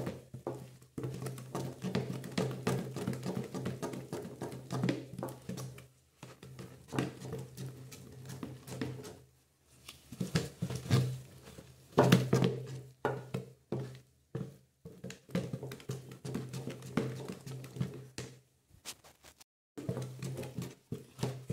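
Wooden spoon stirring and scraping a thick detergent paste in a plastic tub, in irregular strokes and knocks against the tub's sides and bottom, with a steady low hum underneath. The mixture has reached the thick paste stage.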